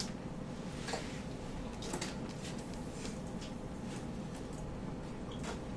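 Quiet classroom room tone: a steady low hiss and faint hum, with a few faint scattered ticks and clicks.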